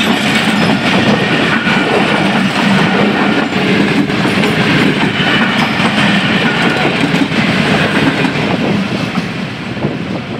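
Passenger coaches rolling past close by: steel wheels clattering over the rail joints in a steady, loud clickety-clack. The sound eases off near the end as the last coach goes by.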